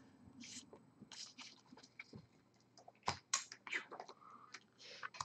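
Faint, scattered taps and short rustles of Magic: The Gathering cards being handled and set down on the table.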